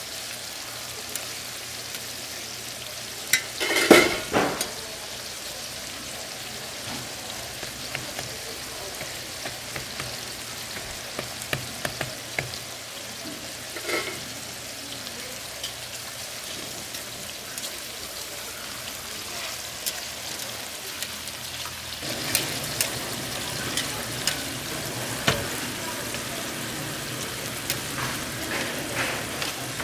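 Tteokgalbi (minced-meat patties) sizzling in fat on a flat steel griddle: a steady frying hiss. A metal spatula knocks and scrapes on the griddle now and then, loudest in a clatter about four seconds in and more often in the last several seconds as the patties are stacked.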